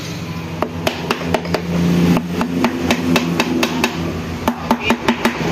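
Quick light hammer taps on a scooter engine's aluminium crankcase, about four a second, seating a freshly fitted part into place.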